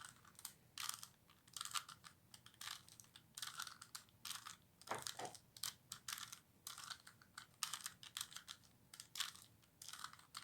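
Faint, rapid, irregular clicking and clacking of a plastic 3x3x3 Rubik's Cube's layers being turned by hand as a move sequence is performed.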